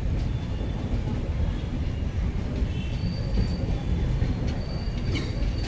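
Train hauled by an electric locomotive rolling along the track: a steady low rumble of wheels on rail, with brief high-pitched wheel squeals and sharp clicks coming and going.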